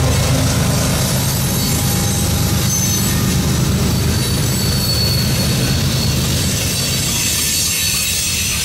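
A freight train passing close by: a mid-train CSX diesel locomotive's engine running past at the start, its low rumble slowly easing, then the steel wheels of the freight cars rolling over the rails. A faint high wheel squeal comes and goes in the middle.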